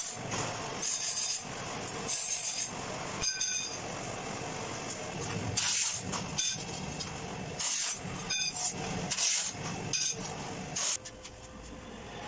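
Stainless steel pipe clinking and ringing as it is knocked and handled, about ten short metallic hits spread irregularly, over a steady workshop hum.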